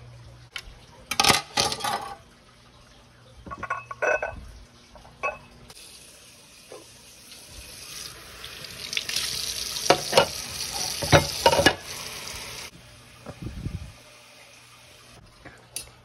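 Kitchen tap running into a sink for about seven seconds, rinsing tomato seeds down the drain. Sharp knocks and clinks of kitchenware come before it and again while the water runs.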